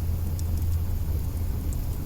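Wood fire burning in an open kitchen hearth: a steady low rumble with a couple of faint crackles.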